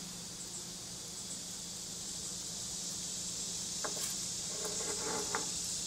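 Steady high chirring of insects in the background. A few soft clicks come about four seconds in as wooden toothpicks are picked up off a wooden cutting board.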